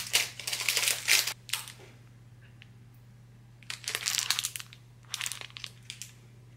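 Foil-lined wrapper of a protein bar crinkling as it is opened and handled. It comes in several bursts, with a lull of about two seconds partway through.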